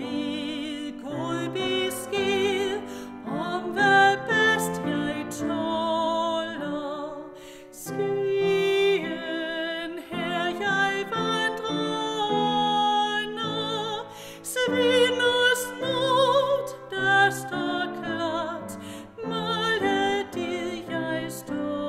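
A woman singing a Danish hymn with vibrato, accompanied by piano.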